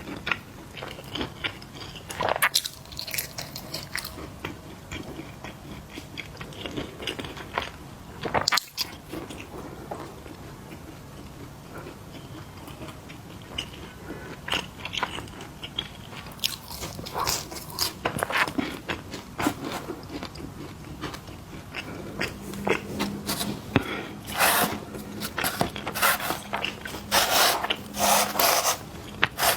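Close-miked eating of crunchy snacks: irregular bites and crunches with chewing in between. The crunches come in quick, louder runs in the second half.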